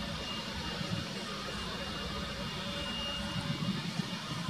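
Boeing 777-300ER's GE90-115B turbofan engines running during the landing rollout: a steady jet whine over a low rumble.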